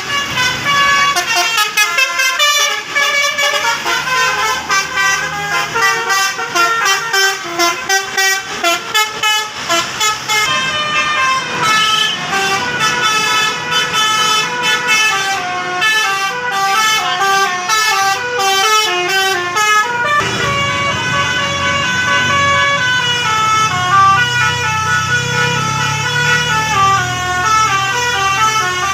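Bus 'telolet basuri' musical horns playing melodies of quick, stepped notes, with rapid on-off toots in the first part. A low rumble joins underneath about two-thirds of the way through.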